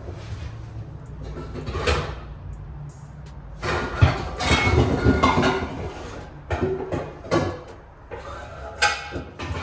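Kitchen work clatter: irregular knocks, clinks and rustling as dishes and items are handled and moved about on the counter, busiest from about three and a half to six seconds in, over a low steady hum.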